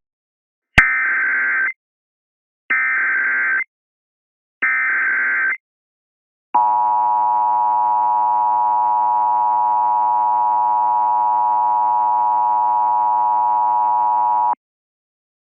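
Emergency Alert System tones: three one-second bursts of the digital SAME header data, then the steady attention tone held for about eight seconds and cut off abruptly, announcing an emergency alert.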